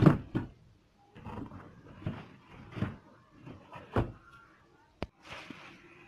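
A box and other household things being moved about by hand: a string of knocks and thumps with rustling between them. The loudest thump comes right at the start, and there is a sharp click about five seconds in.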